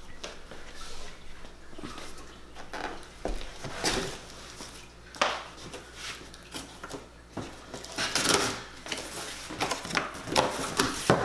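Cardboard shipping box being opened by hand: the taped top cut and the flaps pulled apart, with irregular scrapes, rustles and small knocks of cardboard, busiest in the second half.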